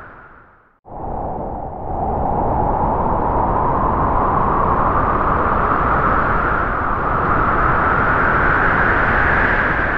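Spooky background sound effect: a steady rushing noise. It fades down and cuts out just under a second in, then starts again abruptly and holds steady, with its hiss slowly rising and falling in pitch.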